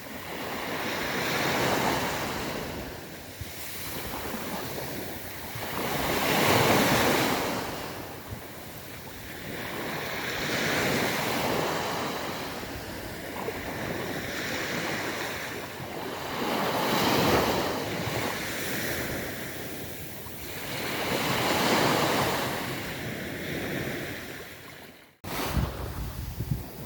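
Sea waves breaking on a beach, about five surges that swell and fade a few seconds apart with surf hiss between them. Near the end the sound drops out abruptly, then returns with wind buffeting the microphone.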